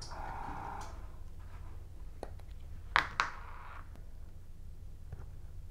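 Quiet handling of a plastic paint dropper bottle being opened and squeezed over an airbrush's gravity-feed cup: a short squeaky rub at the start, then a few sharp clicks, the loudest about three seconds in.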